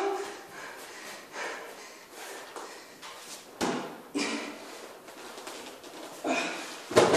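A man straining under a heavy grappling dummy on his shoulders, with short effort grunts near the start and again around four and six seconds in. A single sharp knock comes about three and a half seconds in, with faint handling noise in between.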